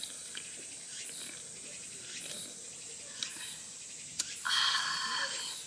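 Faint insects chirring over a low steady hiss, with a louder buzzing call lasting about a second near the end.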